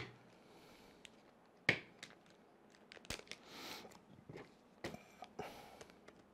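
Small screws and a plastic parts bag handled by hand: a few sharp clicks among soft, faint rustles.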